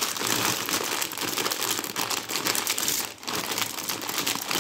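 Plastic bag of dry fusilli crinkling steadily as the pasta is tipped out into a pot of boiling water, with a brief lull about three seconds in.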